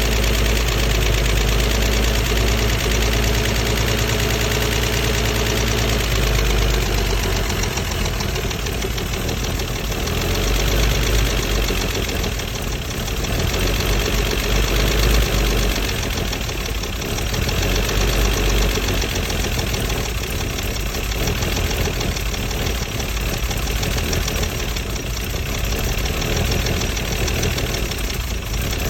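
Mercedes-Benz W114 280CE's 2.8-litre straight-six idling roughly and unevenly, its low note shifting about seven seconds in and its level swelling and dipping.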